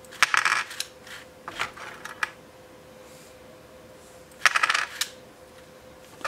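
3D-printed PETG print-in-place pliers clicking and clattering as the handles are worked and the plastic gears turn: three short bursts of rapid plastic clicks, near the start, about two seconds in and about four and a half seconds in.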